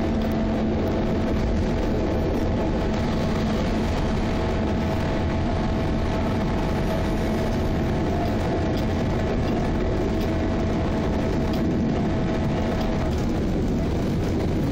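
Class 714 diesel locomotive running along the line, heard from its outside walkway beside the engine hood: steady engine drone mixed with wheel and rail noise. A faint steady whine runs over it and stops near the end.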